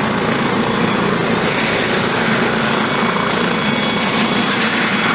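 Airbus Helicopters EC155B1 running on the ground with its main rotor turning: a steady mix of twin-turbine whine and rotor noise that does not change.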